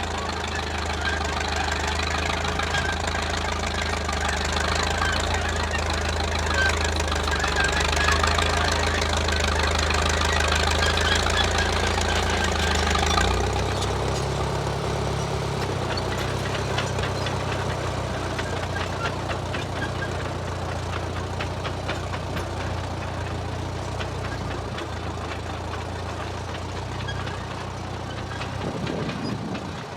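1934 Caterpillar bulldozer's engine running hard, with the clatter of the machine working over it. A little under halfway through, the engine note shifts lower and the clatter eases, and scattered clanks continue.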